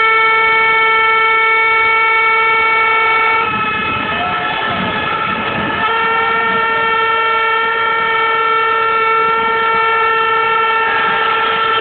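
An air horn blown in long, steady, unbroken blasts over crowd noise. It holds one pitch for about three and a half seconds, stops for about two seconds while crowd voices show through, then sounds again and holds to the end.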